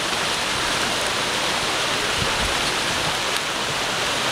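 Rushing river water: a steady, even roar of flowing water.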